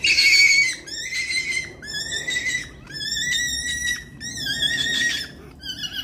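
A rabbit screaming in distress as it is being slaughtered: about six shrill, wavering screams in a row, each under a second long.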